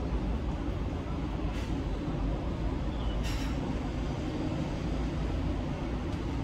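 Steady rumble of city traffic, with a short hiss about three seconds in.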